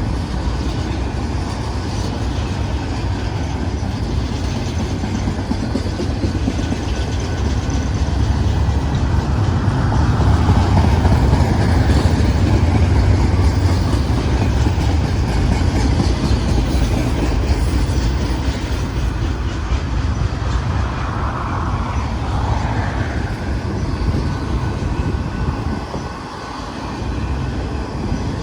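Double-stack container freight train rolling past: a steady noise of wheels on the rails, heaviest in the low end, swelling about ten seconds in and easing briefly near the end.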